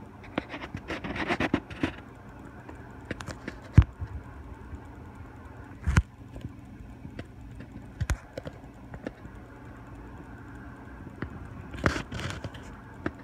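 Handling noise from a handheld phone: scattered scratches and sharp knocks, the loudest about four and six seconds in, over a low steady hum.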